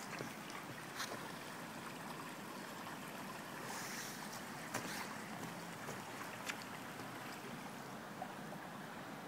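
Creek water running steadily, with a few faint clicks scattered through it.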